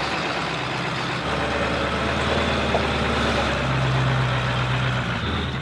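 1996 Ford F-350's 7.3 L Powerstroke turbo-diesel V8 running steadily as the truck crawls up a steep, rocky trail. It grows louder about three and a half seconds in as the truck comes close.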